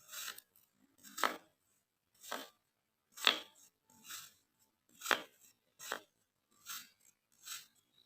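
Kinetic sand being worked in a run of about nine short strokes, roughly one a second, with quiet between them. The strokes about three and five seconds in are the loudest.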